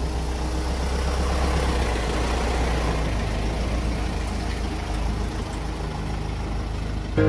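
A Robur LD2002A 4x4 truck's air-cooled diesel engine running as the truck drives past: a steady low rumble under an even rushing noise.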